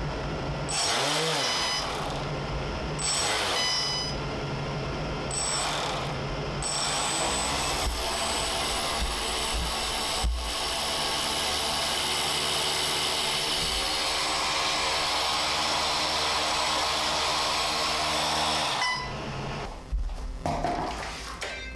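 Two electric RC boat motors sharing a single 120-amp ESC, spinning 3D-printed screw propellers out of the water: a mechanical whine that rises in pitch and pauses a few times in the first seven seconds, then runs steadily for about ten seconds before stopping near the end.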